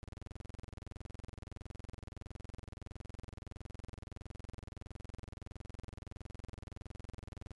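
A steady, unchanging buzzing hum, strongest in the low bass, with a rapid, perfectly even pulse.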